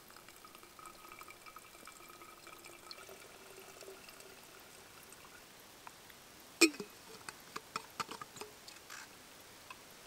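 Water running from a handheld filter into a stainless steel bottle, with a faint tone whose pitch creeps up slightly as the bottle fills. About six and a half seconds in comes a sharp knock, followed by a run of light clicks as the bottle is handled.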